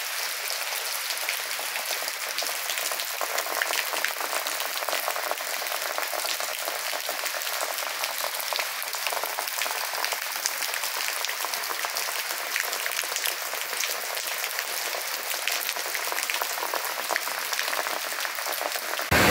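Heavy rain falling steadily: an even hiss full of dense, fine pattering of drops.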